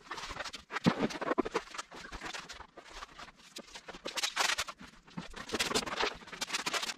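Sped-up work sounds of plastic dimpled underlayment (DMX 1-Step) being unrolled and laid on a concrete floor: rapid, irregular rustling, clatter and knocks.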